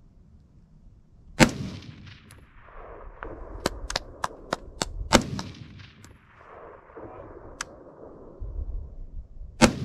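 Three AR-15 rifle shots about four seconds apart, the first the loudest, each followed by a long echo rolling back off the surrounding mountains. Several sharp, thin ticks fall between the first two shots.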